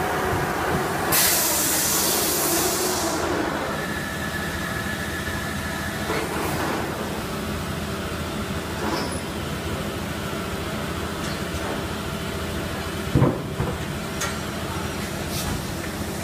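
PET preform injection moulding machine running a 32-cavity mould through its cycle, with a steady machine drone. A loud hiss starts about a second in and lasts about two seconds. A single sharp clank comes near the end, with a few lighter clicks.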